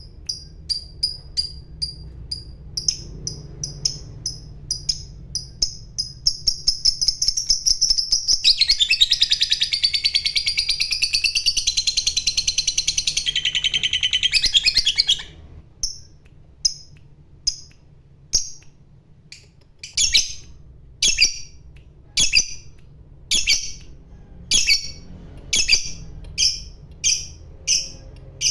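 Lovebird calling: a run of high chirps that speed up and merge, about 8 seconds in, into a long, loud, very rapid chattering trill, the 'ngekek' that lovebird keepers prize. The trill stops after about seven seconds and the bird goes back to single chirps about a second apart.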